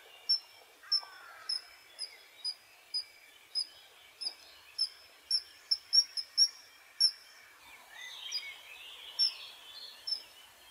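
Kingfisher calling: a series of short, shrill, high-pitched notes, about two a second, coming faster around the middle and thinning out after about seven seconds. Other birds chirp softly and insects trill steadily in the background.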